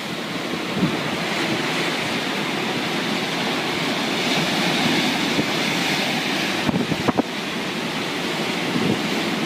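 Heavy ocean surf rushing steadily, mixed with wind buffeting the microphone. A few sharp knocks come about seven seconds in.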